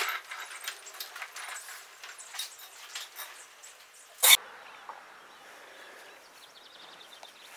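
Small wheels of a dolly rolling over a concrete floor, with many light irregular clicks and rattles from the cart and the mini-split outdoor unit riding on it. About four seconds in there is one sharp knock, and after it only a faint steady hiss.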